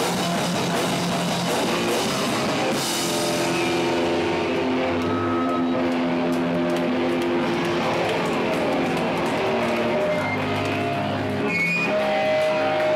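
Hardcore punk band playing live: distorted electric guitars and bass over drums, loud and steady. After a few seconds the cymbals thin out while the guitars hold sustained chords, and the full kit comes back near the end.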